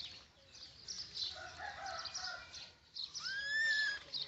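Repeated short, high chirps, then about three seconds in a single drawn-out animal call that rises in pitch and holds for under a second, the loudest sound.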